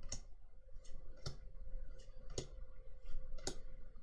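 Pokémon trading cards being flicked through one at a time, a short crisp click as each card is slid off the stack, about two a second.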